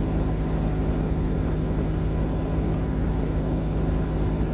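Steady hum of a car heard from inside the cabin, the engine running at low speed with the air conditioning blowing, with a constant low drone.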